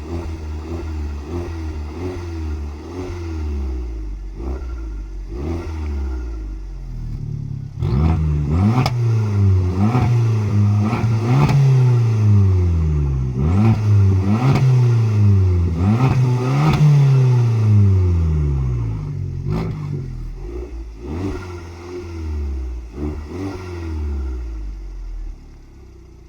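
Abarth Punto Evo's 1.4 turbocharged MultiAir four-cylinder petrol engine idling, then free-revved about half a dozen times in quick succession, each blip rising sharply and dropping slowly back. It then settles back to idle before cutting off near the end.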